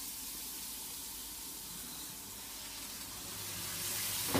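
Frying pan of chicken, onions and raisins in butter sizzling and hissing steadily after a splash of water, growing a little louder near the end.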